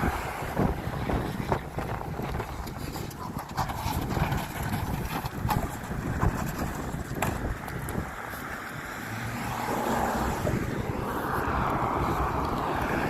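Strong gusting wind buffeting the microphone as a rough low rumble, with scattered small clicks; about ten seconds in a broad rushing gust swells up and stays.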